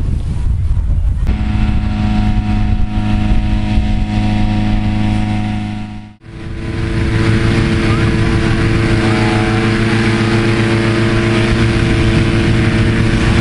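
Petrol-engine inflator fans running steadily, blowing cold air into hot-air balloon envelopes. The sound cuts off abruptly about six seconds in and another inflator fan takes over, running at a different, steady pitch.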